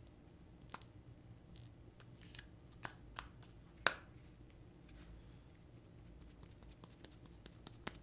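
Small clicks and taps of a plastic cushion makeup compact and its puff being handled, a few scattered clicks with the sharpest about four seconds in.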